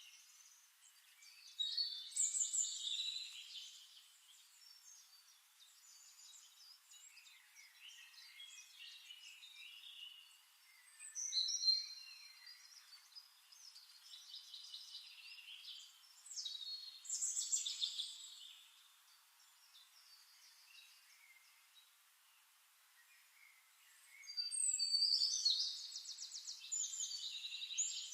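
Songbirds singing in bursts of high chirps and trills separated by quieter gaps, with a long, fast trill near the end.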